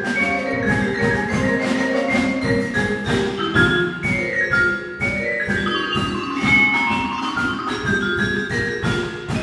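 Percussion ensemble playing live: marimbas and other mallet keyboards strike fast, dense patterns of pitched notes over drums, with runs of notes stepping downward.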